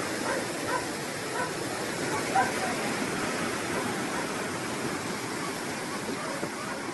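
A huaico, a debris flow of mud and stones, rushing down a ravine and spilling over a wall: a steady rushing noise of moving water and mud.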